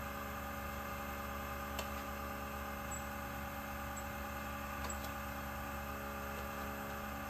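Fuel pump running with a steady hum, a couple of faint ticks in it. It is not pumping any fuel and builds no pressure.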